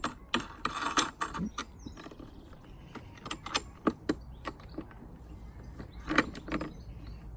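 Lawn mower handle parts and twist-lock knobs being handled and fitted by hand: irregular clicks and knocks, with a short scraping rattle about a second in.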